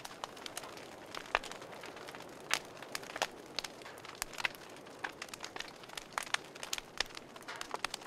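Wood campfire crackling: a steady hiss of burning logs with frequent, irregular sharp pops and snaps, several a second.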